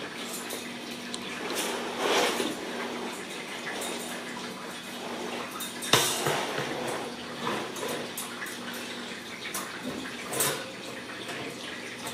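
Scattered clicks, taps and light rattles of kittens playing around a wire exercise pen and a dangling toy on a tile floor, with one sharp click about six seconds in. A faint steady hum runs underneath.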